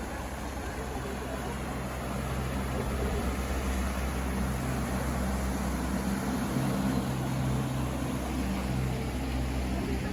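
A steady low engine drone with a constant hum.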